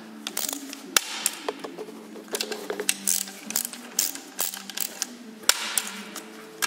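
Ratchet wrench clicking and its socket clinking on bolts in the aluminium housing of an Audi S-tronic gearbox: irregular sharp clicks, some in quick runs, with a few louder metal knocks.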